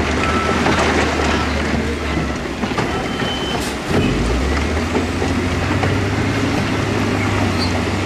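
Heavy diesel earthmoving machinery at work: a steady low engine drone under dense clattering and clanking. The engine note drops out briefly about four seconds in, then comes back at a different pitch.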